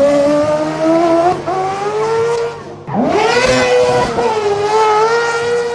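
Two cross-kart buggies accelerating through a corner one after the other, their engines revving high. The first engine climbs in pitch and fades a little before halfway, and the second sweeps up about three seconds in and holds a high, steady note.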